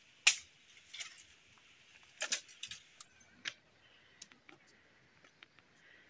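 A few sharp snaps of dry wood and twigs as someone moves through a tree's branches, the first about a third of a second in the loudest, with a small cluster about two seconds in. A faint steady hiss lies under them.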